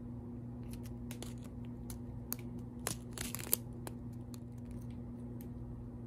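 Small plastic bags of diamond-painting drills being handled: scattered light clicks and crinkling, with a louder burst of plastic rustling about three seconds in, over a steady low hum.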